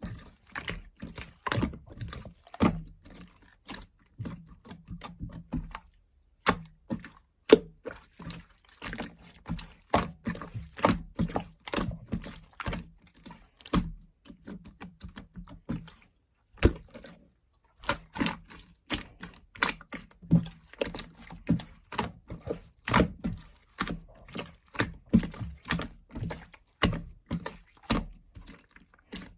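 Large clear slime being squished and pressed by hand: a fast, irregular run of sticky clicks and small air-bubble pops, stopping briefly about six seconds in and again about seventeen seconds in.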